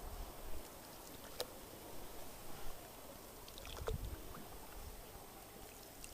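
Oars dipping and splashing as an inflatable rowboat is rowed through shallow, weedy water, with two sharp knocks, about a second and a half in and again near four seconds.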